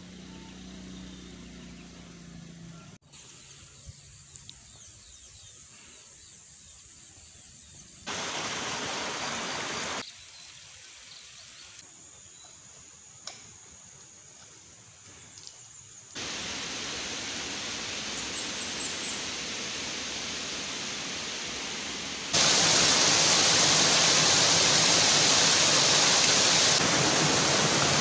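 A string of cut-together outdoor clips: faint countryside ambience with short spells of rushing water, then for the last several seconds the loud, steady rush of a waterfall pouring over boulders into a rocky stream.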